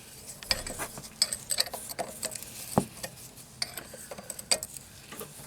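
Irregular metallic clicks and clinks of a wrench and fittings as a brake-line banjo bolt with copper washers is fitted and tightened into a brake caliper.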